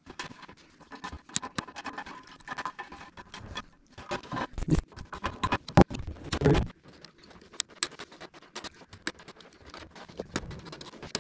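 Wire mesh (hardware cloth) being handled and cut with hand snips: irregular clicks, snips and metallic scraping, with a few louder knocks around the middle.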